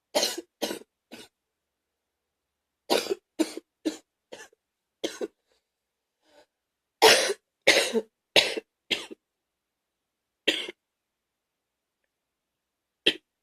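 A person's wet, gaggy cough, coming in bouts: three quick coughs at the start, a run of about six a few seconds in, four of the loudest between seven and nine seconds in, then two single coughs near the end.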